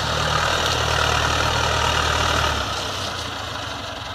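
Massey Ferguson 294 S tractor's four-cylinder diesel engine running while pulling a plough through heavy ground. About two and a half seconds in, the engine note drops and the sound gets a little quieter.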